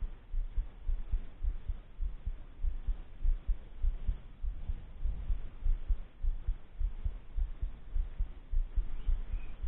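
Wind buffeting the microphone: irregular low rumbling thumps that come and go in gusts.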